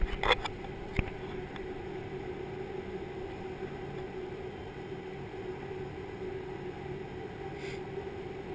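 Aircraft engines heard from inside the cabin on the ground: a steady drone with a constant hum. A few sharp knocks in the first second or so.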